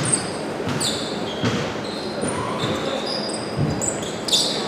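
Basketball game on court: a ball bouncing with thuds, and several short, high sneaker squeaks on the floor.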